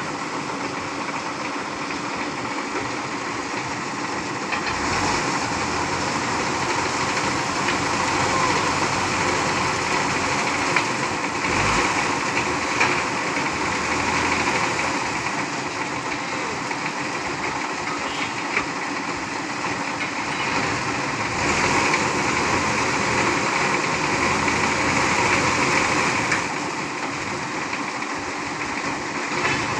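Diesel engines of recovery trucks running, swelling louder and easing off several times.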